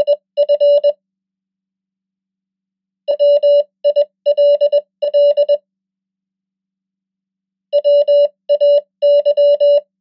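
Morse code at 20 words per minute, sent as beeps of one steady pitch. It spells the end of 'if', then 'will', then 'way', with gaps of about two seconds between the words.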